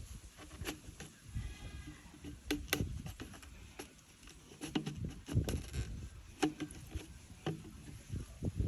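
Scattered knocks and taps from hand work with tools and fittings, with low handling rumble. A faint drawn-out high cry comes about one and a half seconds in.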